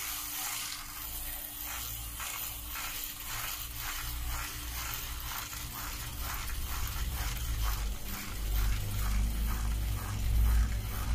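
A spoon beating coffee and sugar in a cup to whip it to a froth: rapid, even strokes about three a second against the cup.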